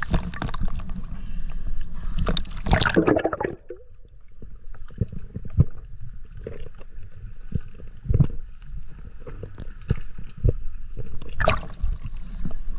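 Seawater sloshing and splashing right at the microphone while it rides the surface chop. About four seconds in, the sound turns muffled and quieter, as it does underwater, with scattered clicks and pops. A splash near the end marks the return to the surface.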